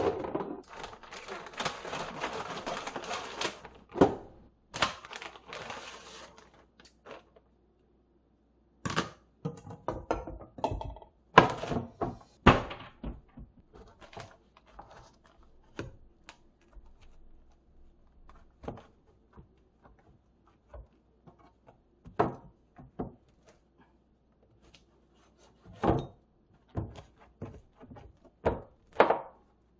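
Frozen food packs and plastic storage containers being put into a freezer, with irregular knocks, thuds and clatter. In the first few seconds there is a stretch of plastic bag rustling.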